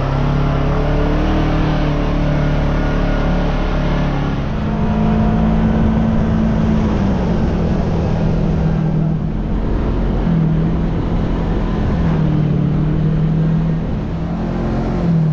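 Vehicle engine running while driving: a steady hum whose pitch steps up and down several times as speed changes, over road and wind noise.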